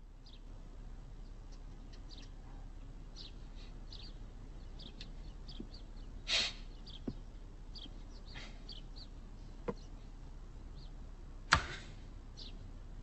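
Quiet room tone with faint bird chirps scattered throughout, a brief soft noise about six seconds in, and a single sharp click of a wall light switch near the end.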